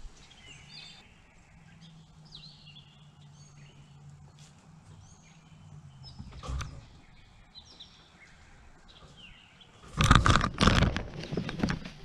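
Small songbirds chirping in scattered short calls over a faint low hum, then about ten seconds in a sudden loud run of close thumps and rustling near the feeder.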